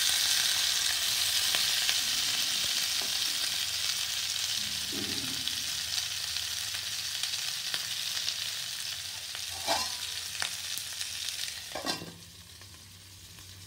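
Stuffed capsicums sizzling in hot oil in a pan, with a few knocks of a wooden spatula. The sizzle slowly thins, then drops sharply about twelve seconds in, muffled as a steel lid is set on the pan with a knock.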